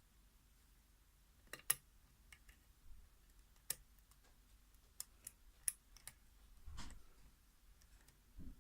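Lock pick and tension wrench working the pins of a padlock during single-pin picking: a scattered series of small sharp metallic clicks, with a soft low thump near the end.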